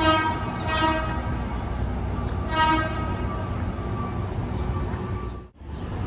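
A vehicle horn honks three short times, two close together at the start and a third about two and a half seconds in, over steady city street traffic noise. The sound drops out briefly near the end.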